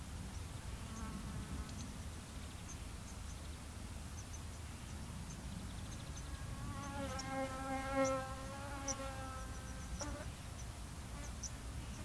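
A flying insect buzzing close to the microphone, a steady buzz that swells to its loudest about eight seconds in and cuts off suddenly at about ten seconds, with a fainter buzz passing early on. Beneath it a low wind rumble, with faint, short, high bird chirps scattered throughout.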